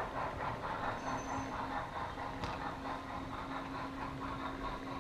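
HO-scale model train rolling along the track: a steady hum with the fine, even clicking of the wheels on the rails, and one sharper click about halfway through.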